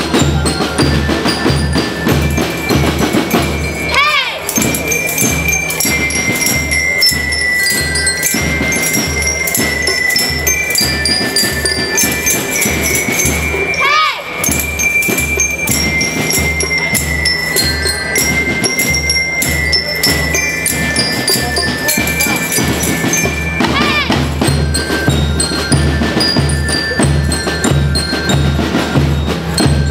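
Children's school band playing: bell lyres carry a high, bell-like melody over a steady, even drum beat on snare and bass drums. Three times, about ten seconds apart, a whistle-like tone sweeps up and back down.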